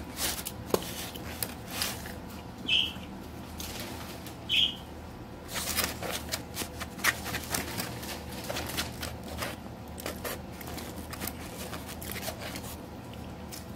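Scattered light clicks and taps, with two short high-pitched squeaks about three and five seconds in.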